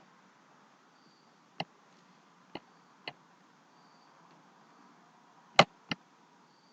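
Computer mouse clicking: five short sharp clicks spaced out, the last two close together and loudest.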